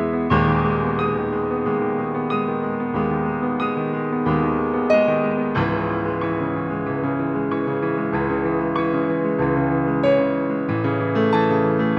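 Solo piano playing a simple pop song with the sustain pedal held, so the notes ring on into one another. A new bass chord comes in every one to two seconds, with a melody on top.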